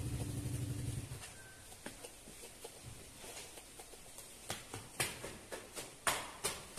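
A metal vegetable corer scraping out the inside of an eggplant for stuffing. There are light scrapes at first, then louder, sharper strokes about two a second in the second half. A low motor hum at the start cuts off about a second in.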